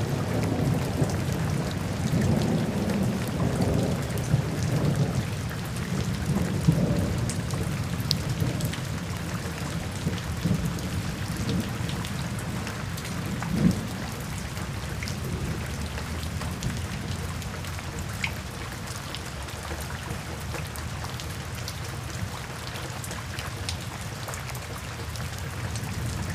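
Steady heavy rain with thunder rumbling low underneath, strongest in the first several seconds, one short louder peal about fourteen seconds in, then softer. A few single drop ticks stand out here and there.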